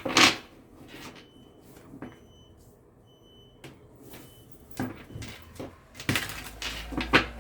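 Building gate's warning beeper giving short, faint, high beeps about once a second ('pipipi'). A loud knock comes at the start, and clicks and knocks of handling near the end.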